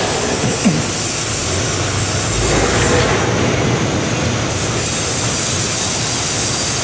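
Heavy diesel flatbed lorry running as it manoeuvres slowly, a steady rumble and noise with a brief squeak about half a second in.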